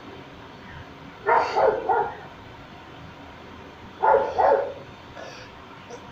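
A dog barking: three quick barks about a second in, then two more about four seconds in.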